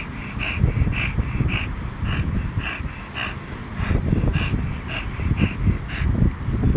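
Wind buffeting the microphone in a strong, uneven low rumble, with a regular series of short, high calls, about two a second, that stop about six seconds in.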